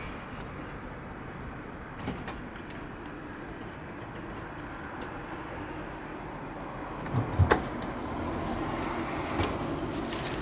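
Vending machine working through a purchase: a steady mechanical hum with a knock about two seconds in, a couple of heavier thuds about seven seconds in as the item is moved and dropped, and a click near the end.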